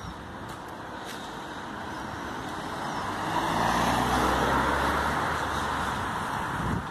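A car driving past close by, its tyre and engine noise swelling to a peak about four seconds in and then fading away.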